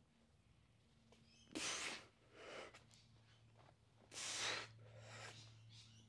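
Hard, forced breaths of a man straining through heavy dumbbell bench press reps: two loud breaths about two and a half seconds apart, each followed by a softer one.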